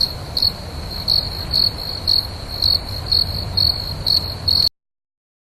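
Insects trilling: a steady high-pitched trill with louder pulses about twice a second, over a low rumble. The sound cuts off abruptly near the end.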